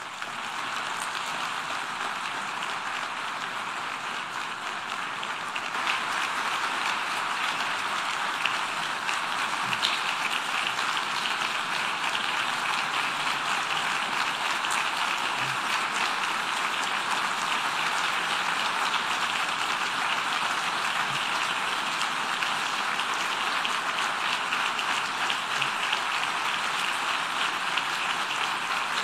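A large audience of delegates applauding in a standing ovation. It starts at once, swells louder about six seconds in, and then holds steady.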